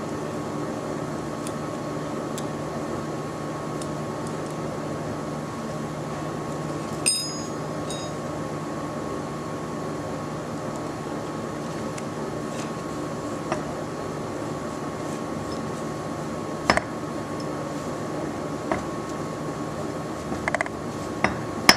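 Steady background hum with occasional sharp metallic clicks as the steel parts of a CVT drive pulley (variator) are handled. One click about seven seconds in rings briefly, and several more cluster near the end.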